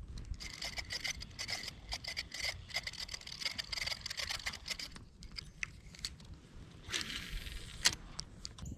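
Fishing reel being cranked in: a faint whirring with rapid clicking for about four seconds. A brief rush of noise follows about seven seconds in.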